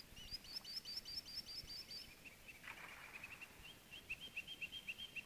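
Songbird singing runs of quick, evenly repeated chirping notes, about five a second, the first run higher-pitched than the later ones.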